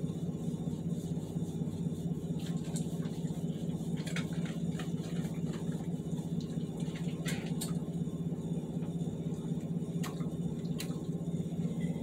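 A steady low hum throughout, with scattered short clicks and crunches from a dog eating kibble out of a metal bowl.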